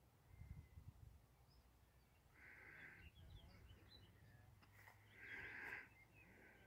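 Faint riverside ambience in which a bird gives two calls, one about two seconds in and a louder one near the end, with a few soft chirps from smaller birds between them and a low rumble of wind underneath.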